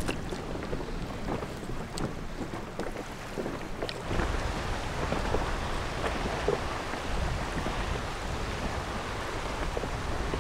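Wind on the microphone and water lapping against a boat, with scattered small knocks and splashes. It gets somewhat louder about four seconds in.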